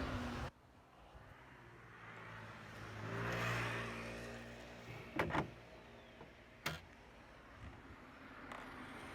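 A motor vehicle passes by, its engine swelling and then fading over a few seconds, followed by two sharp clicks.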